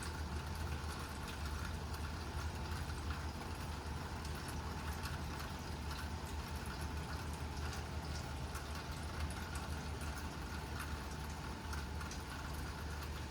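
Rain falling steadily, with scattered faint ticks of drops and a constant low hum underneath.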